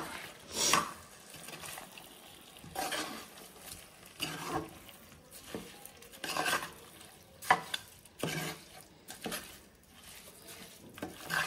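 A spoon scraping and turning rice through chicken masala in an aluminium pressure cooker, in uneven strokes every second or two, coating the raw rice in the masala. A light sizzle runs underneath from the pot on low flame.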